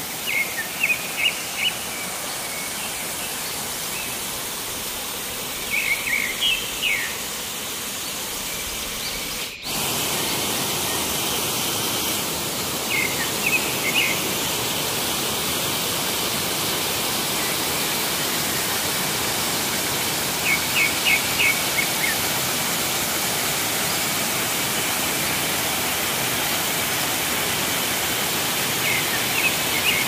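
Steady rush of falling water from a waterfall, louder after a sudden cut about ten seconds in. A bird calls over it every few seconds in short runs of three to five quick, high chirps.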